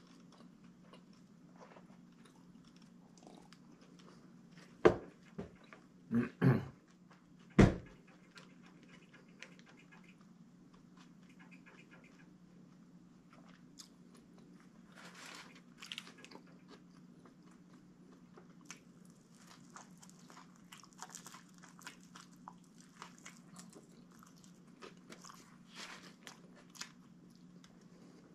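A person chewing a sub sandwich: soft mouth sounds and small clicks over a steady low hum. About five seconds in come three or four loud, sharp knocks against the table within about three seconds.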